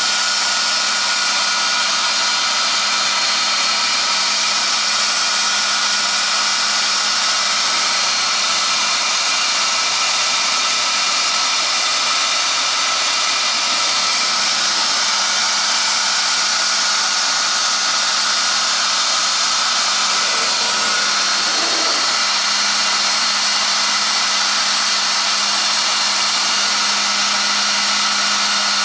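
High-speed spindle of a robotic CNC router running steadily, trimming the edges of a thermoformed plastic part. A steady hum underneath grows a little louder about two-thirds of the way through.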